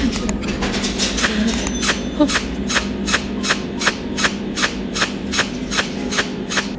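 TIG torch pulse spot-welding two overlapped steel utility-knife blades: a rapid, even series of sharp arc snaps, about three a second, starting about a second in.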